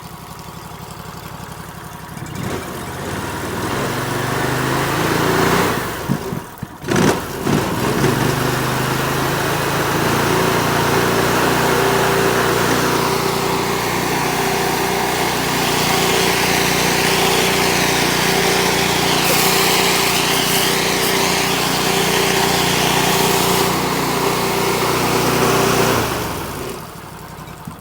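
A 10 GPM gas pressure washer's engine running steadily under load. A spraying hiss joins it about halfway through. The engine stops shortly before the end.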